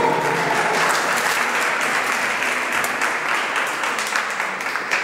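Audience applauding: many hands clapping in a dense, steady patter that slowly dies down.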